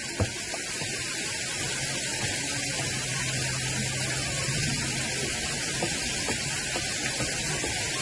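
Steady hiss of water running and splashing over rocks in a small, low-flow stream cascade.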